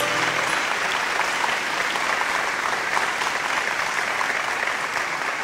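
Audience applause: many people clapping in a dense, even patter that slowly fades. The last held notes of music die away about half a second in.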